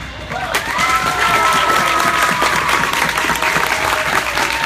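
Crowd applauding, the clapping building about half a second in, with a few voices calling out over it; it cuts off suddenly at the end.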